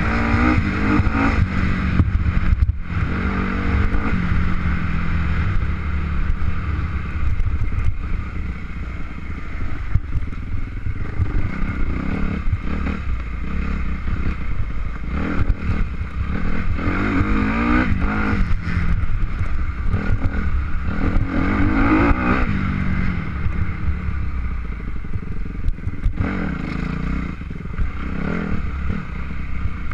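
An engine running under load and revving up and down again and again, every few seconds, with rattling and scraping over it.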